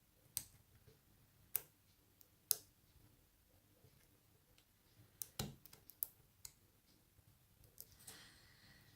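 Faint, sharp clicks of a pick lifting and setting pin tumblers in an Abus 83CS/50 padlock: three single clicks about a second apart, a quick run of clicks about five to six and a half seconds in, and a soft scrape near the end.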